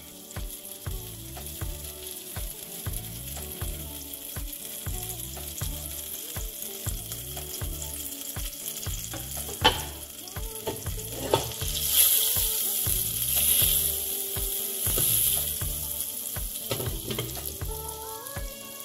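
Butter sizzling as it melts in a hot stainless-steel pot, growing louder about twelve seconds in, with a couple of sharp clicks near the middle. Background music with a steady beat runs underneath.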